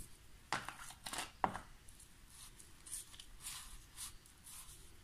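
Table knife scraping a spread across the top of a block of whole-wheat sandwich bread: a few quick strokes between half a second and a second and a half in, then lighter, softer strokes.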